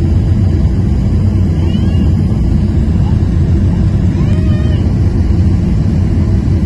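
Steady low rumble of an airliner's engines and rushing airflow heard from inside the cabin, with the flaps extended on the approach to landing.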